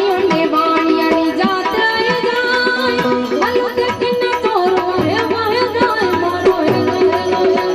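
A woman singing a Gujarati bhajan, her melody gliding and ornamented, over tabla drumming and steady held notes underneath.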